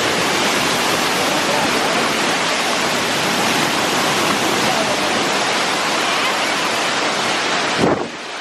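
Loud, steady rush of fast-flowing water close to the microphone. It cuts off suddenly near the end, just after a brief bump.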